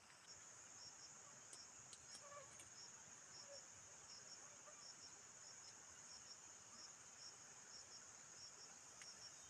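Insects chirring in the background: a faint, steady high-pitched trill with a regular chirp pulsing beneath it. A few faint clicks come between about one and three seconds in.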